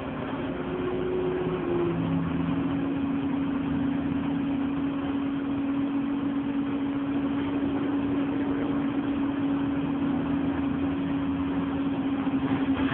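Alexander Dennis Enviro200 Dart single-deck bus under way, heard from inside near the front doors: steady engine and drivetrain hum over road noise. The hum drops slightly in pitch about two seconds in, then holds steady.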